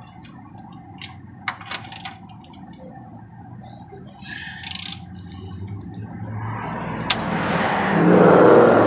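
A few light metallic clicks early on over a low hum, then a passing vehicle's noise swelling steadily to its loudest near the end and starting to fade.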